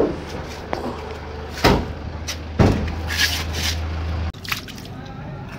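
Sharp knocks as a car battery is handled and set down on paving stones: one at the start, then two more about a second and a half and two and a half seconds in. A low rumble runs under the last two and cuts off suddenly a little after four seconds.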